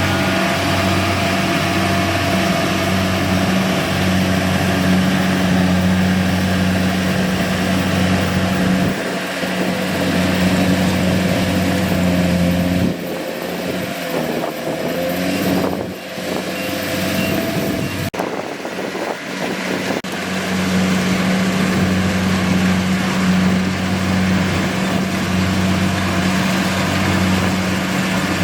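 Kubota DC-70G PRO combine harvester's diesel engine running with a steady deep hum. About a third of the way in, the hum drops away and the sound thins for several seconds, with a sharp click partway through, then the hum comes back at full strength.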